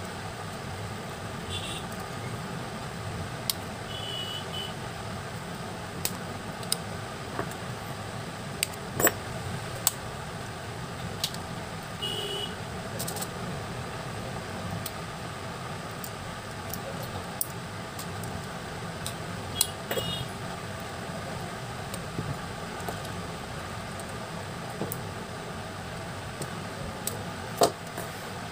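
Scattered sharp clicks and taps of plastic and metal parts as a Samsung Galaxy J2 2018 smartphone is opened up and its board handled, over a steady background hum. A few brief high double chirps sound at intervals.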